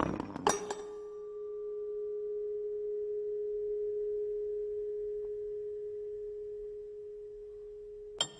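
Metal car parts clattering, then a single steady ringing tone that swells and fades over about seven seconds, cut off by sharp metallic clinks near the end.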